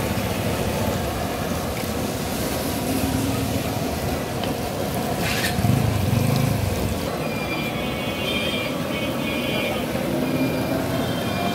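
Potato chops deep-frying in a wok of hot oil under a steady roar of street traffic. A brief high tone sounds about eight seconds in and fades out about two seconds later.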